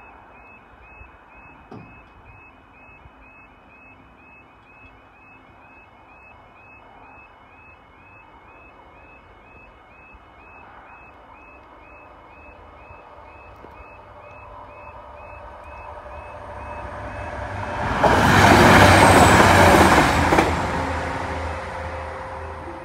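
A level crossing's audible warning alarm warbles over and over. A Class 175 diesel multiple unit approaches, passes loudly for about two and a half seconds near the end, and fades away, with its engine tones ringing on behind it.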